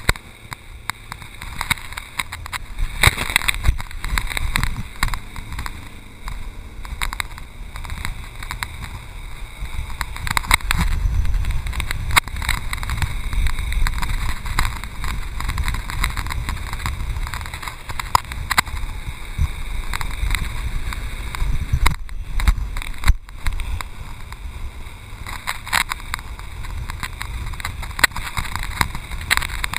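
Water rushing and splashing against an inflatable towable tube skimming across choppy boat wake at speed, with irregular slaps and spray hits, and wind buffeting the microphone.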